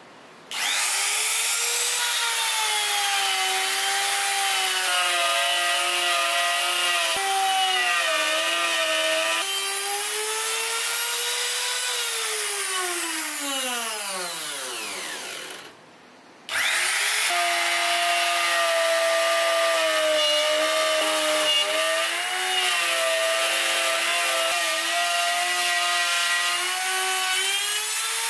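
Compact trim router with a straight bit routing a slot in a wooden table top. It spins up with a quick rising whine, and its pitch dips and wavers as it cuts. About 12 seconds in it is switched off and winds down in a long falling whine, then after a short pause it starts again and cuts on.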